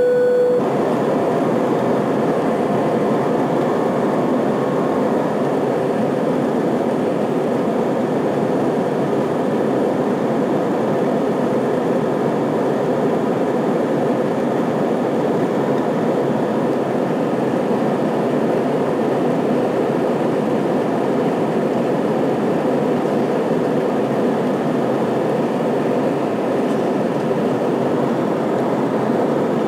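Cabin noise inside an Airbus A320 climbing out after takeoff: a steady, unchanging rush from its IAE V2500 turbofan engines at high thrust and the air streaming past the fuselage.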